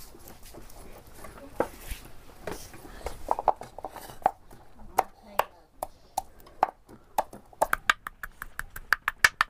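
Wooden pestle pounding garlic and ginger in a wooden mortar: scattered single knocks at first, then, near the end, a fast steady pounding of several strokes a second.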